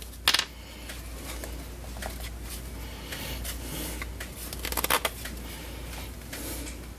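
Hands handling a plastic pen-type multimeter: rustling and light plastic clicks, with a sharp click about a third of a second in and a cluster of clicks around five seconds.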